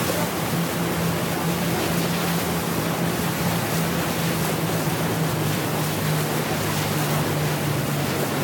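Motorboat running at cruising speed: a steady low engine drone under a constant rush of water and wind. The engine note dips slightly about six seconds in.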